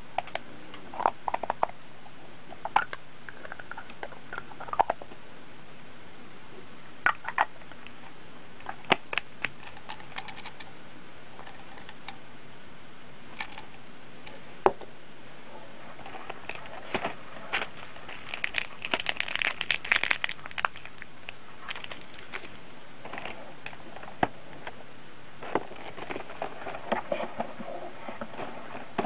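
Hands handling a small hard-plastic Hello Kitty container: scattered clicks and taps of plastic against plastic and fingers, with a busier stretch of rattling and rustling about two-thirds of the way through, over a steady hiss.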